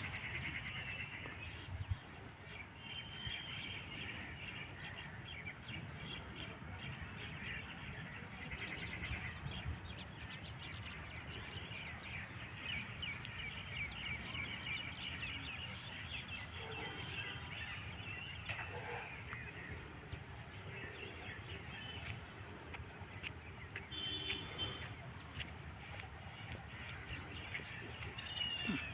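Birds chirping and calling almost without a break, over a steady low background rumble.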